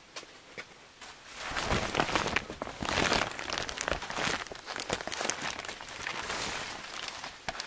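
Handling noise from the camera being picked up and carried: rubbing and rustling against the microphone with scattered knocks, starting about a second in after a quiet moment.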